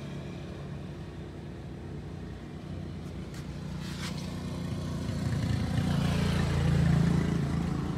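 A motor vehicle engine running steadily, getting louder over the second half, with a couple of faint clicks near the middle.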